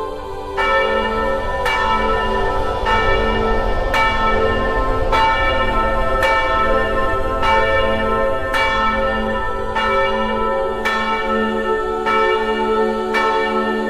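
Church bell tolling, a single strike a little more than once a second that starts about half a second in, each stroke ringing on into the next.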